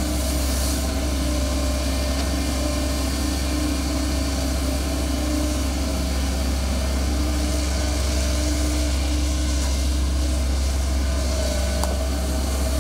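Kobelco hydraulic excavator's diesel engine running steadily under load as the boom digs and swings the bucket, a low even drone with a humming tone that swells and fades every few seconds.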